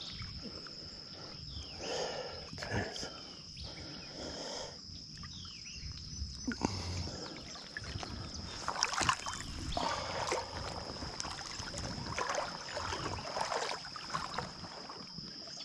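River water sloshing and splashing around an angler's legs as he wades through a shallow, rocky stretch, with a steady high insect drone behind.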